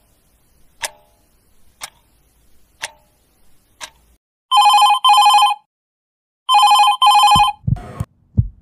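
A clock ticking about once a second, then a telephone bell ringing in two double rings. A few low thuds follow near the end.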